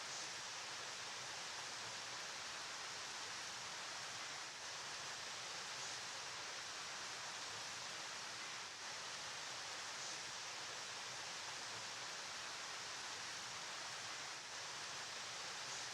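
Steady rushing of a flowing river: an even hiss, brighter than it is deep, that dips slightly in level a few times.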